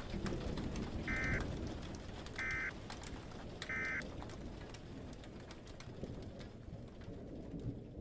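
Three short buzzy data bursts of an Emergency Alert System SAME end-of-message code, about a second and a half apart, signalling the end of the weather-radio alert. Under them a steady rain-like hiss with scattered crackles that slowly fades down.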